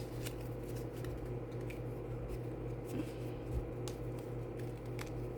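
Paper challenge cards being handled and fastened into a clip: faint rustles and a few light clicks over a steady low hum.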